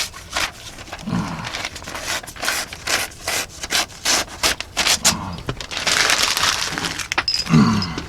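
Knife blade drawn in quick repeated strokes across a wood-mounted sharpening surface, a short rubbing scrape with each stroke, and one longer hiss near the end.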